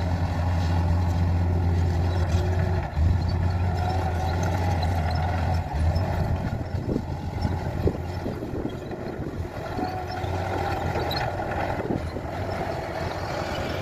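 Bulldozer's diesel engine running with a steady low drone, which drops away about six seconds in. After that comes looser rumbling with scattered clanks and knocks.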